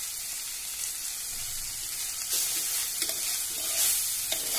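Coconut oil and curry leaves sizzling in a clay pot of taro-stem and coconut thoran, a steady hiss. From about halfway a metal spoon stirs and scrapes through the mix, making several short scrapes against the pot.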